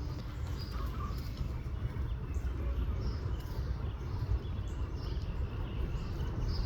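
Faint, short, scattered bird chirps over a steady low rumble in the outdoor background.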